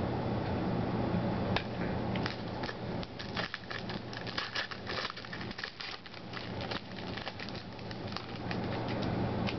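Foil wrapper of a 2008 Upper Deck Icons football card pack crinkling and tearing as it is opened by hand: a run of irregular crackles, busiest in the middle, over a steady low hum.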